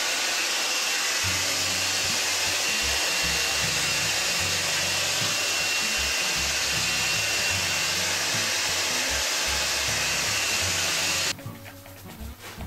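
Hand-held hair dryer blowing steadily as it dries short hair, a rush of air with a faint thin whine, switched off abruptly about a second before the end.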